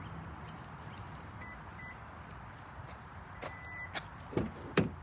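Short high electronic beeps, two quick ones and then a longer one, over a steady low hum, followed by a few sharp knocks and clicks near the end.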